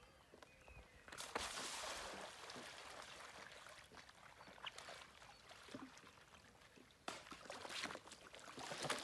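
Faint water sounds of swimming-pool water lapping and splashing around a floating surfboard. The hiss rises in two spells, about a second in and again near the end, with a few light ticks.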